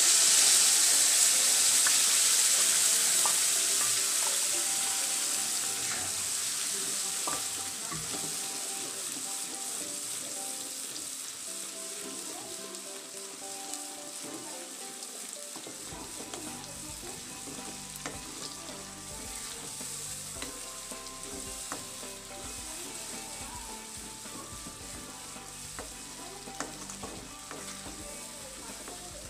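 Wet ground paste of chilli, ginger, garlic and onion sizzling in hot oil in a kadai as it goes in, the sizzle loudest at the start and dying down steadily as the paste cools the oil. A spatula stirs it through, with small scattered scrapes and clicks against the pan.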